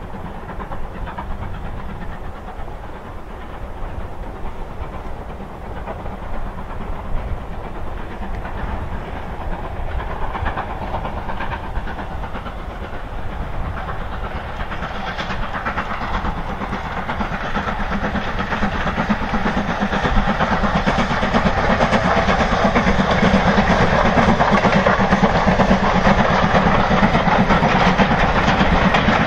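Steam-hauled passenger train approaching and running past, growing steadily louder until the coaches are rolling by near the end.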